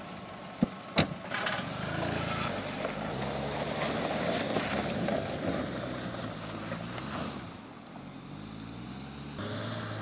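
Two sharp knocks as the Suzuki SX4's car door is shut, then its four-cylinder engine pulls away across rough grass, revving with tyre and body noise; the sound eases about three-quarters of the way through and the engine comes up again near the end as the car passes close.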